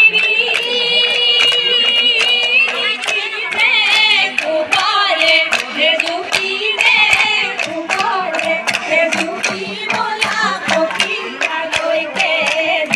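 Women singing a Jeng Bihu song together, with sharp claps keeping time about three times a second.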